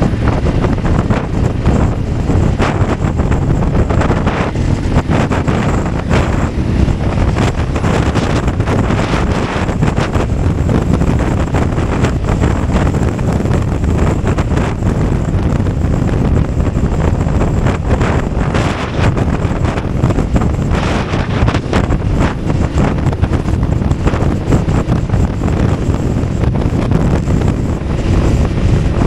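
Steady wind rushing over the microphone of a BMW F 850 GS motorcycle under way, with its parallel-twin engine and road noise running underneath, mostly low in pitch.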